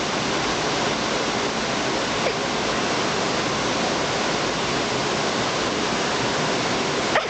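Steady rushing of water, an even unbroken noise.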